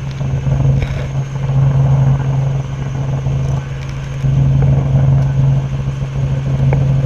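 Robinson R44 helicopter in flight: a steady, loud drone of its piston engine and rotor, with a strong low hum.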